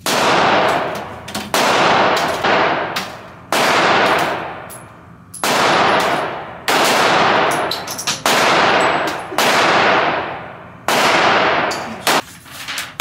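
Gunshots echoing in an indoor firing range: about eight loud, sharp reports roughly one to two seconds apart, each trailing off in a long ringing echo, with a couple of fainter shots between them.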